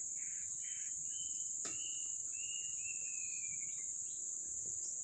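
Steady high-pitched insect chorus from the flooded forest, with a few thin whistles between about one and four seconds in, the last one sliding slowly down, and a single sharp click near the second mark.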